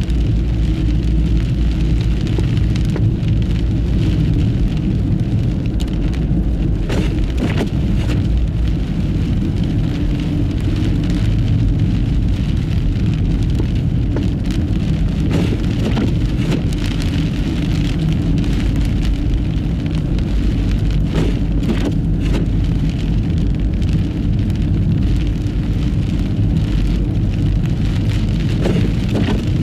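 Steady low road rumble and hiss of a car driving over a snow-covered road in a blizzard, with scattered sharp clicks and knocks.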